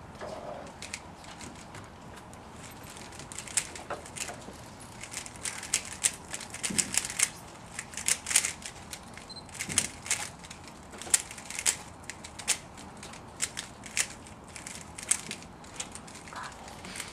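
3x3x3 Rubik's cube being turned rapidly by hand during a timed speedsolve: irregular runs of quick plastic clicks and clacks as the layers snap round, sparse at first and much denser from about three seconds in.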